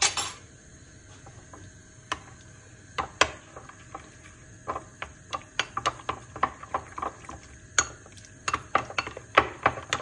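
Metal spoon stirring a thick yogurt-and-flour mixture in a glass bowl, clicking against the glass. A few scattered clicks at first, then a quick, steady run of clicks from about halfway.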